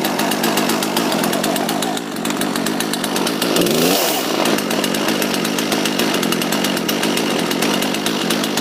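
Two-stroke chainsaw, rebuilt with new internals, running steadily after starting, revved up and back down once about three and a half seconds in.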